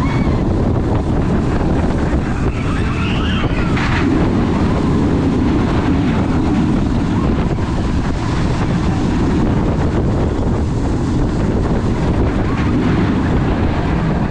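Steady wind rush over the microphone mixed with the low rumble of the Griffon's Bolliger & Mabillard dive-coaster train running along its steel track at speed.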